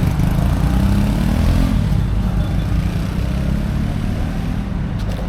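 Bajaj V15 motorcycle's single-cylinder engine running steadily, rising briefly in pitch about a second in, just after its repair.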